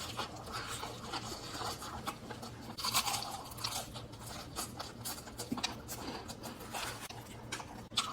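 Close-miked handling of fast-food packaging and food: a dense run of quick clicks, crinkles and rustles, with a louder burst about three seconds in and another near the end.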